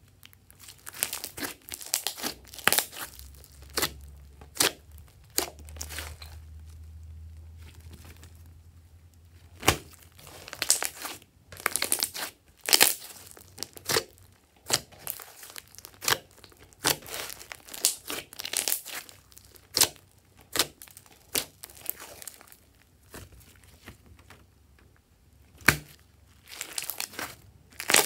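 Hands kneading and pressing thick, glossy glitter slime: wet squishing with irregular sharp pops and crackles as air pockets in the slime are squeezed out.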